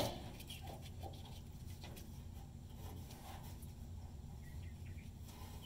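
A single sharp click as a connector on the fuel lines at the tank of a 1990 Chevrolet C1500 is pulled apart. After it come only a low steady hum and faint handling ticks.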